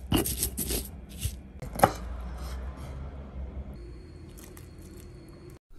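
Stone pestle pounding shallots and garlic on a stone mortar (Indonesian ulekan and cobek): about five sharp knocks in the first two seconds, followed by quieter, steady kitchen sound.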